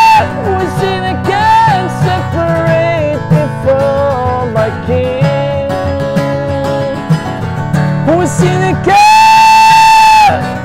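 A man singing with an acoustic guitar in a slow song. Near the end he holds one long, loud note.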